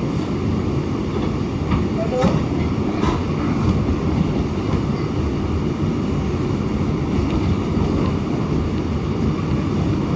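Bombardier R142 subway car running between stations, heard from inside: a steady low rumble of wheels on rail, with a few faint clicks in the first few seconds.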